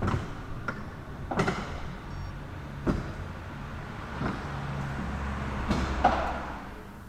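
Metal knocks and clunks from ZF 6HP26 automatic gearbox parts being handled and set into the gearbox case. A steady low sliding rumble swells in the middle.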